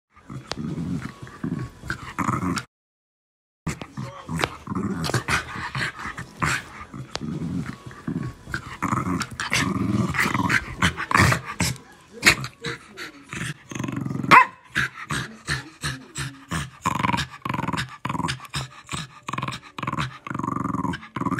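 Two small dogs play-fighting, growling and snarling in quick, continuous bursts, broken by about a second of silence near the start. About two-thirds of the way through comes one sharp, louder yip.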